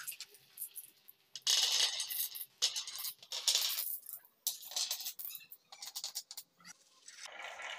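Dozens of glass marbles rolling down a HABA wooden wavy-groove marble run, clicking against each other and the wood in uneven bursts of clatter. The clatter builds again near the end.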